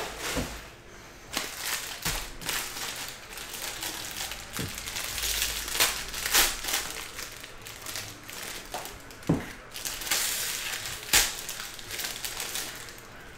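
Foil trading-card pack wrapper crinkling and tearing as it is handled and ripped open by hand, with a few sharp louder crackles around the middle and again near the end.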